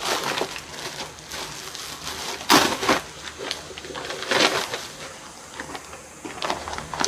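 Thin plastic mailing bag being torn open and crinkled, then the brown paper bag inside rustling as it is pulled out and handled, in irregular crackles with the loudest about two and a half seconds in.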